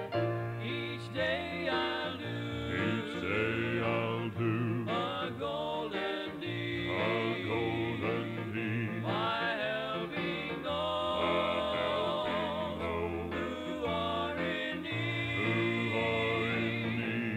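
Gospel vocal group singing a hymn with vibrato over instrumental accompaniment, played back from a 1983 cassette tape.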